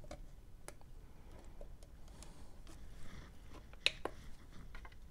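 Quiet handling sounds: a few light clicks as plastic tweezer probes are held on a capacitor on a circuit board. A sharper double click comes just before four seconds in, as the button of a handheld component tester is pressed to start a measurement.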